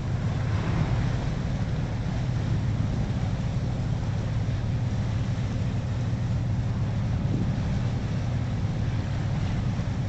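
Inboard engine of a twin-screw llaut, a classic Mallorquin/Menorquin fishing boat, running steadily under way with an even low drone, over the rushing of the wake behind the stern.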